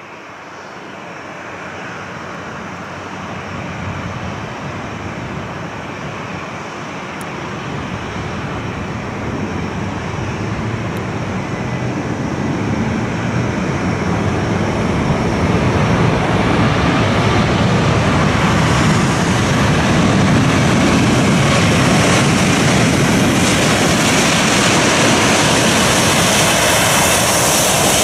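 Boeing 737 jet engines roaring as the airliner lands and rolls out along the runway. The roar grows steadily louder through the first half, then holds loud and steady.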